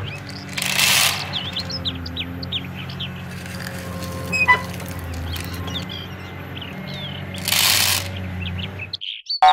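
Birds chirping over a steady low engine hum, with two short bursts of hiss, one about a second in and one near the end. A cartoon boing starts just at the close.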